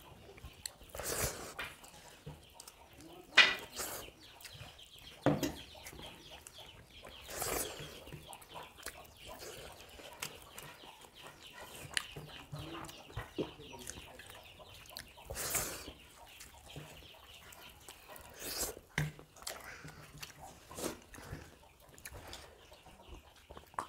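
Close-up eating sounds of biryani eaten by hand from steel plates: chewing and lip-smacking, with scattered sharp louder clicks and smacks.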